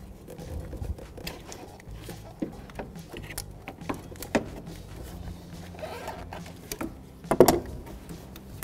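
Scattered light clicks and knocks of hand tools and car parts being handled under the hood, with a short, louder clatter about seven and a half seconds in.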